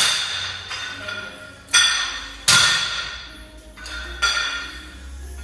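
Metal gym weights clanking four times, each hit ringing on briefly.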